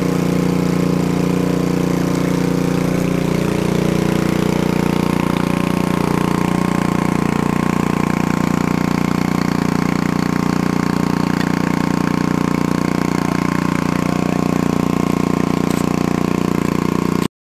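An engine running steadily at idle, its pitch shifting slightly in the first few seconds, then cut off abruptly near the end.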